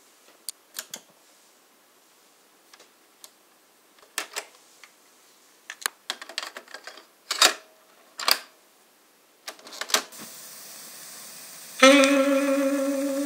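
Plastic clicks and clacks of a Marantz PM326 boombox's cassette deck as a cassette is loaded and the keys are worked. Steady tape hiss starts about ten seconds in, and saxophone music plays from the tape near the end.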